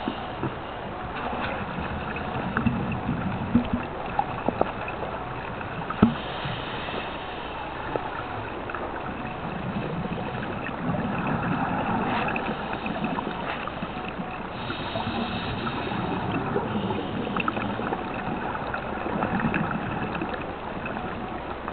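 Underwater sound of a scuba diver breathing through a regulator: exhaled bubbles gurgling in about three swells roughly seven seconds apart over a steady hiss, with a few sharp clicks in the first six seconds.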